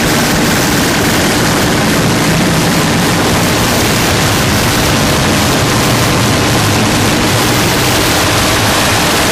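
Harsh noise music: a dense, steady wall of loud distorted electronic noise with a faint held tone low underneath it.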